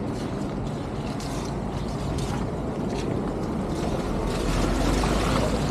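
Outdoor street ambience: a steady wash of noise over a low rumble, the rumble growing louder about four and a half seconds in.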